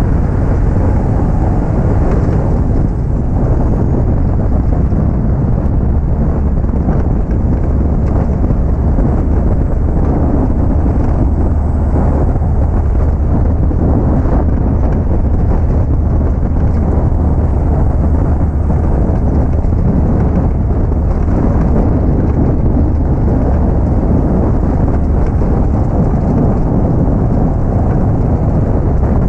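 Steady underbody rumble of a Nissan GQ Patrol rolling along a limestone road: tyre and chassis noise with faint scattered rattles, which the owner puts down to plenty of loose parts underneath.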